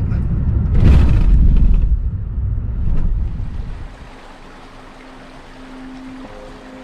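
Low rumble of a vehicle on the move with wind buffeting the microphone, loudest about a second in and dropping away about four seconds in. Faint music comes in near the end.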